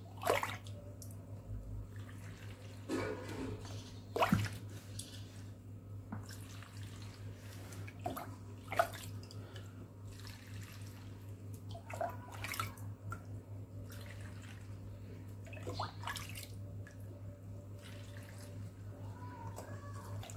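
A metal ladle scooping salted pickling brine from a glass bowl and pouring it into a glass jar of vegetables: short splashes and pours of liquid every few seconds, over a low steady hum.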